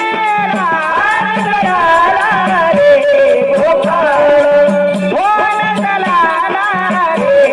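Devotional song sung with instrumental accompaniment: a bending, ornamented vocal line over a steady held drone note and an even rattling percussion beat.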